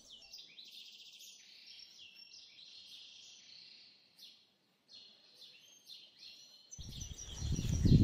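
Several birds chirping and trilling in high-pitched songs, breaking off briefly about halfway. Near the end a loud, low, rough rumble comes in under the birdsong.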